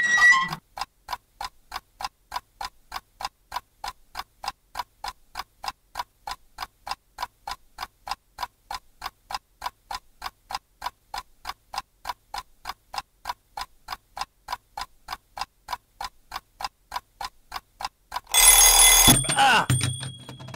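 A clock ticking steadily, about four ticks a second, then near the end a loud burst of alarm-clock bell ringing lasting about a second and a half, with a low sound under its tail.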